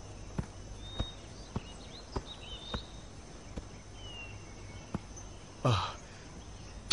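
Footsteps on a dirt path, a light tap about every half second to second, over faint bird chirps and a steady insect drone. A single short, louder noise comes near the end.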